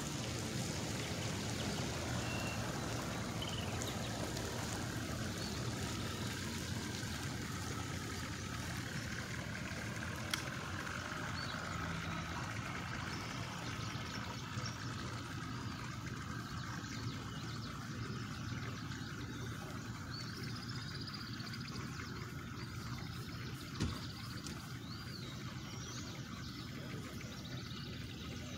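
Steady outdoor background of distant engine rumble with faint short chirps and two brief clicks, one about ten seconds in and one near the end.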